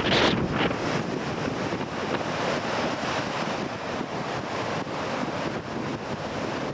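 Waves breaking on a rocky shore in strong wind, with the wind buffeting the microphone. A louder wash of surf in the first second eases into a steady rush of sea and wind.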